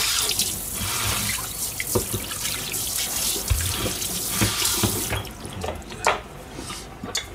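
Kitchen tap running into a stainless-steel sink, rinsing hands and then a strainer of food scraps with the pull-out spray head. The water is shut off about five seconds in, followed by a few light knocks.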